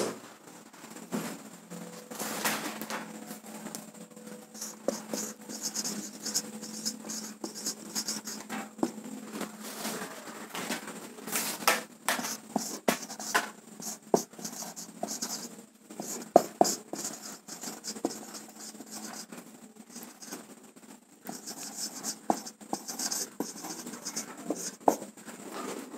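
Marker pen writing on a whiteboard: irregular short scratchy strokes and squeaks as words are written, with a brief pause about twenty seconds in.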